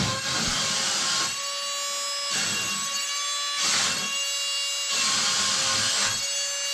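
Wall-climbing RC car's suction fan running with a steady high-pitched whine, with a rushing hiss that swells and fades every second or two as the car moves on the wall.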